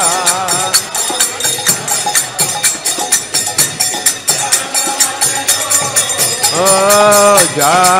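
Devotional kirtan music: a group of voices sings over a fast, steady clash of small hand cymbals (karatals). A clear sustained sung phrase rises near the end.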